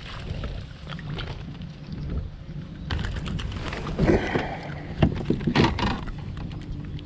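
A hooked largemouth bass being brought aboard a plastic fishing kayak: a run of knocks, rattles and splashes, loudest about four to six seconds in, over a steady low rumble.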